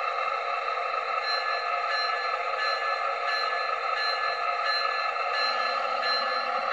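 An HO scale Atlas ALP-45DP model locomotive's onboard sound, heard through its small speaker: a steady engine drone with no bass, and from about a second in a bell ringing about once every two-thirds of a second.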